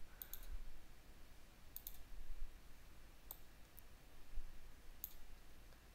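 A handful of faint, sparse computer mouse clicks as a dropdown is set and the page is scrolled, over a low background hum.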